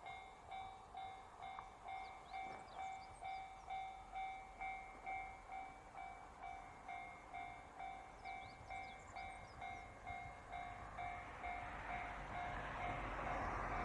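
Electronic railroad crossing alarm ringing in a steady, evenly repeating ding. Over the last few seconds the rumble of an approaching KiHa 261 series diesel limited express rises beneath it.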